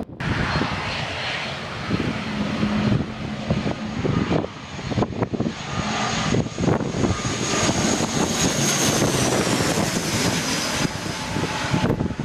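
Binter Canarias ATR 72-500 twin turboprop on low approach, passing close overhead: a steady propeller and engine drone with a high turbine whine that falls in pitch a little after the middle as the aircraft goes by. Gusts of wind buffet the microphone.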